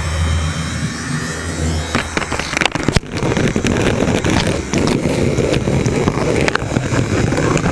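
HO scale model train running along its track, heard up close from on board. A low steady hum comes first, and from about two seconds in a busy rattle with many sharp clicks of the wheels over the track.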